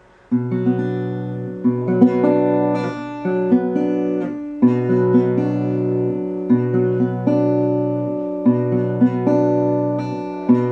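Acoustic guitar strumming sustained chords, with a new strum every second or two.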